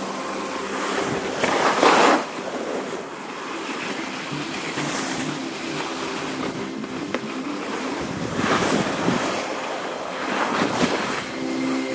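Skis sliding over snow: a hiss that swells with each turn, loudest about two seconds in and again twice near the end, with wind on the microphone.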